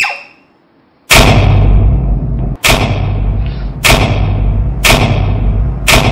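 Five heavy cinematic boom hits, coming a little faster toward the end, each with a long echoing tail over a low rumble. This is suspense sound design for a film opening.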